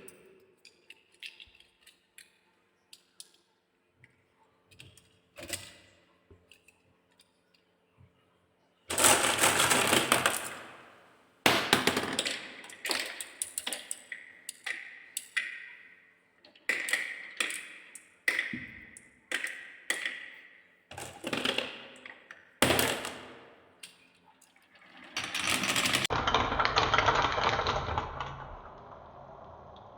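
Marbles rolling and clattering along a marble run's tracks: scattered light clicks at first, then a loud rolling rush about nine seconds in, followed by a string of clacking rolls that each die away, and a longer rattling roll near the end.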